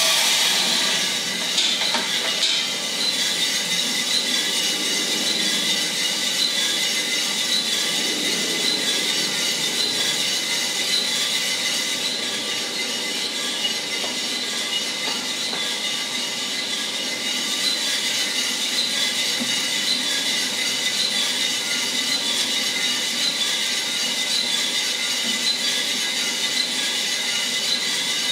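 Mill City 1 kg drum coffee roaster running: a dense, steady whir with a high, constant whine, starting abruptly.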